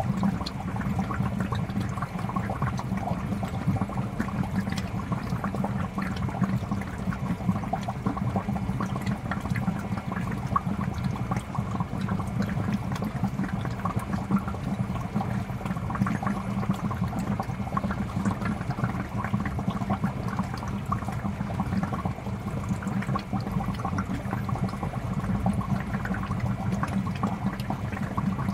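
Aquarium fish tank water bubbling and splashing steadily.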